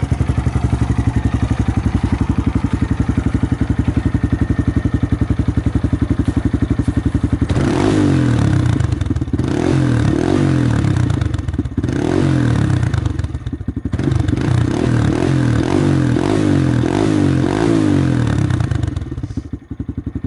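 Honda Grom 125's single-cylinder four-stroke engine running through a Two Brothers S1R aftermarket exhaust, idling with an even, rapid pulse. From about seven seconds in it is revved in a quick string of short throttle blips, each rising and falling in pitch, which drop off near the end.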